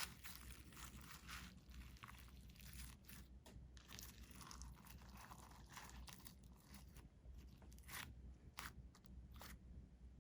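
Purple glitter slime being squished and stretched by hand, with an irregular run of soft sticky crackles and pops that stops near the end.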